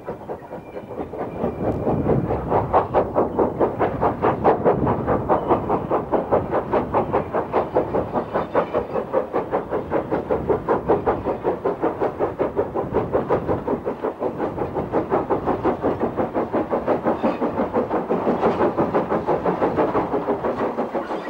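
Lancashire and Yorkshire Railway 0-6-0 steam locomotive working a train, with a steady, even chuffing exhaust at about four to five beats a second.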